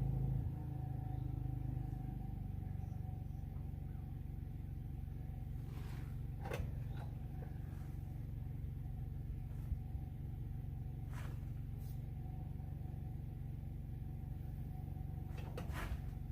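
A small engine running steadily at a low, even speed. Its note drops a little about half a second in, and a few faint knocks sound over it.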